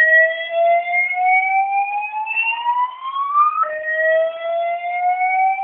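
Fire alarm voice-evacuation system sounding its whoop tone between spoken evacuation messages: a tone that sweeps slowly upward in pitch, then drops back about three and a half seconds in and starts rising again.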